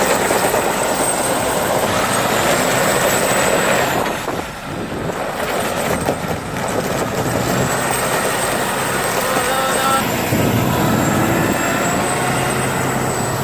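Russian six-wheel-drive truck's engine running under heavy load as it works through mud, with a dense, steady rushing noise from the drivetrain and wheels. The sound dips briefly about four seconds in and then picks up again.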